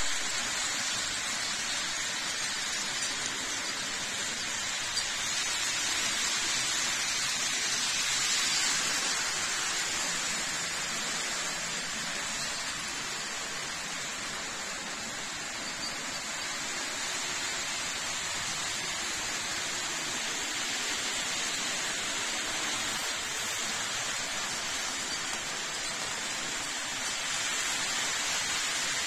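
Model trains running on a layout: a steady rushing noise of wheels rolling on the rails.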